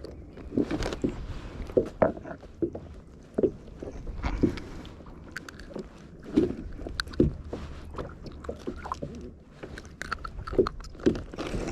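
Irregular knocks, thumps and scraping clatter of gear being handled aboard a small fishing boat, with a low rumble of wind or water underneath.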